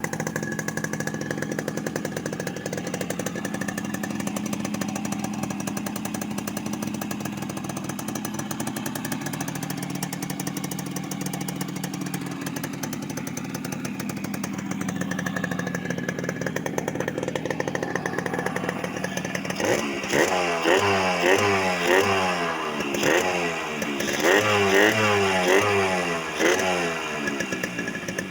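Yamaha RX115 two-stroke single-cylinder motorcycle engine, with a new-model exhaust and a flywheel taken from a V80, idling steadily, then revved in a run of quick throttle blips for the last several seconds. The engine has the same sound as before the flywheel swap.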